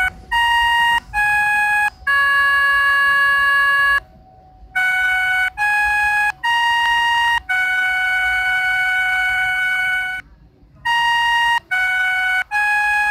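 Virtual melodica app on an Android phone playing the Indonesian railway station chime melody, note by note: phrases of three short notes each ending on a long held note, with brief pauses between phrases.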